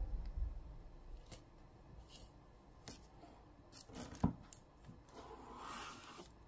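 Knife blade cutting through a baked chocolate-chip cake on parchment paper: a soft thump as the cut starts, a sharp click about four seconds in, and a scraping, crumbly slicing sound near the end.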